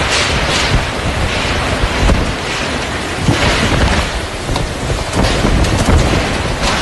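Storm wind buffeting the microphone: a loud, continuous rushing with gusts that surge and ease every second or so.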